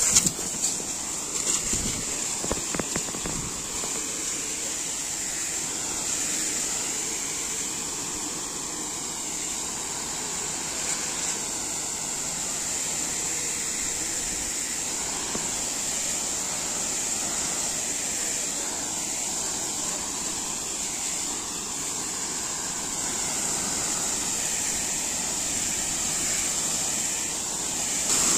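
Hose-fed sprayer wand hissing steadily as its nozzle shoots a jet and fine mist up into tree foliage, with a few handling knocks in the first three seconds.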